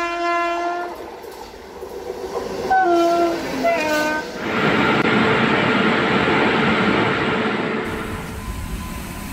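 A train horn ends a long blast about a second in and gives two short blasts around three to four seconds in. Then comes the rushing noise of a train running past, which fades near the end.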